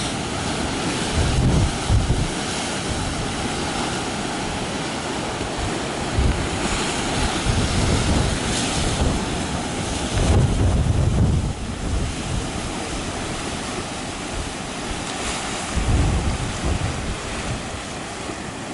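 Ocean surf washing and breaking against the base of a lava-rock sea arch and cliff, a steady rushing wash, with wind buffeting the microphone in low gusts several times.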